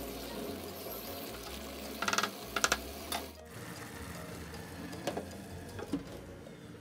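Rice and vegetables simmering in a pot with a steady bubbling. A wooden spatula stirs and knocks sharply against the pot several times about two seconds in. Lighter clinks come near the end as the glass lid is set on.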